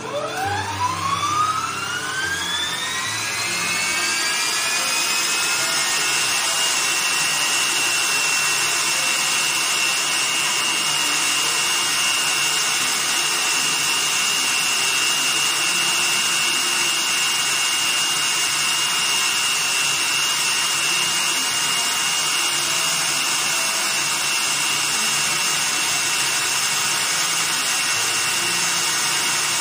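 Electric stand mixer switched on, its motor whine rising in pitch over about five seconds as it speeds up, then running at a steady speed with the wire whisk turning in the steel bowl.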